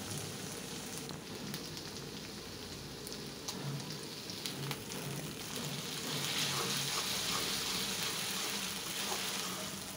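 Onions and spice paste sizzling in hot oil in a karahi, with a metal spatula scraping and clicking against the pan as they are stirred. The sizzle grows louder about six seconds in, as the stirring picks up.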